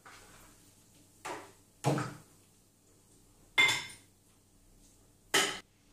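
Plate and spatula knocking and clinking against the stainless steel bowl of a kitchen robot as sausage pieces are scraped in: four short knocks, the later two sharper clinks.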